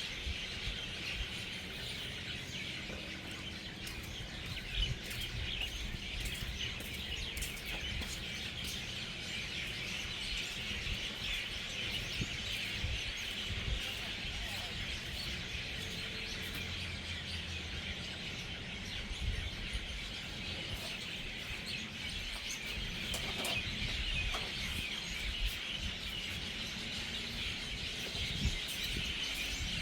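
Hundreds of birds settling into their evening roost, a dense, continuous chatter of many overlapping chirps and calls, with a low rumble underneath.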